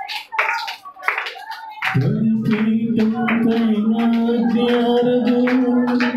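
A man prays rapidly into a microphone. About two seconds in, a sustained electronic keyboard chord starts and holds steady, with short sharp sounds, likely claps, scattered over it.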